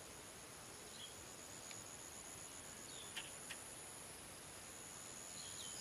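Faint, steady, high-pitched insect chirring from the grass, with a few soft clicks and short chirps.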